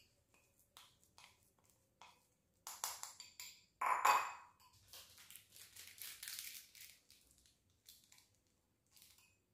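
A metal spoon clinking and scraping against a small glass bowl while stirring a thick, crumbly mix of crushed crackers and egg yolk. The loudest clink, with a short ring, comes about four seconds in.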